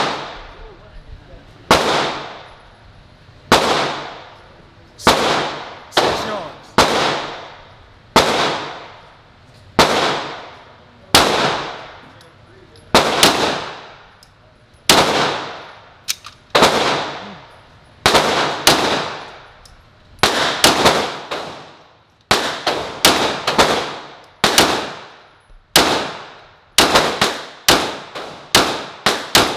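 9 mm Glock 17 pistol in stock form (regular unported barrel, OEM recoil spring) firing about two dozen shots, each with a long echoing tail. The shots are spaced about a second and a half apart at first and come quicker, some in close pairs, over the last third.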